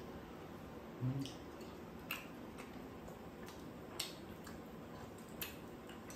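Metal chopsticks clicking against a pan and bowls during a meal: a few separate sharp clicks, with soft chewing. About a second in, a short low hum from one of the eaters comes with the loudest click.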